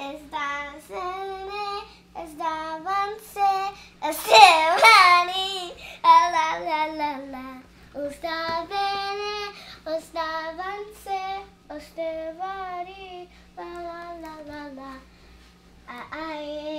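A young girl singing a Spanish song, unaccompanied, in short phrases with brief pauses; the loudest phrase comes about four seconds in.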